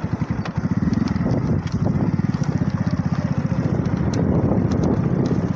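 Small motorcycle engine running steadily while being ridden over a dirt track, its fast, even firing pulses getting a little louder about a second in.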